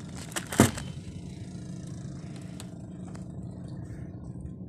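A brief loud crinkle of the plastic bag of umbrella nails being handled about half a second in, over a steady low engine drone that runs on unchanged.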